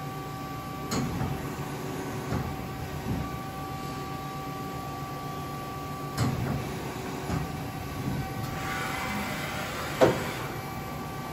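Okuma V80R CNC vertical lathe moving: a few separate mechanical clunks, then a hiss as the turret ram travels down, ending in a sharp, loud clunk near the end. The machine's steady hum runs underneath.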